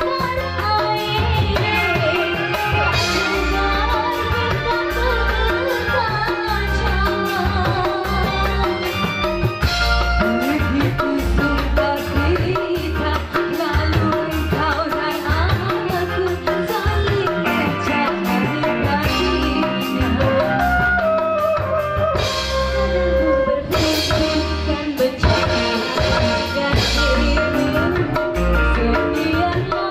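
Live band music from a stage performance: a drum-kit beat under electric guitar and melody lines, with singing in parts.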